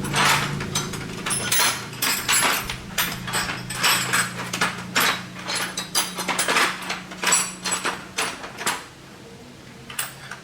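Irregular metallic clinks and taps of hand tools and metal parts being handled, several a second, over a low steady hum that stops about eight and a half seconds in.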